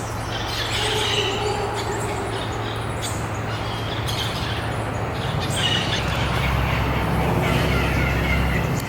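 Birds chirping in short calls over steady outdoor background noise, with a low hum underneath that gets louder about six seconds in.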